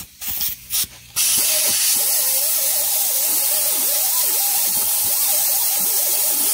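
Air-powered mini die grinder with a Roloc abrasive disc: a few short trigger blips, then running steadily with a loud air hiss and a whine that dips in pitch each time the disc bears down, grinding carbon buildup off a 6.0 diesel variable-geometry turbo's vane ring.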